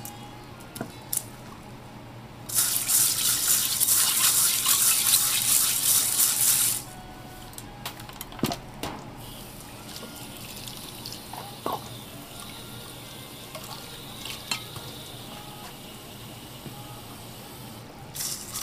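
Kitchen tap water running into a sink for about four seconds, starting a couple of seconds in and cutting off suddenly. Scattered small clicks and taps of handling follow.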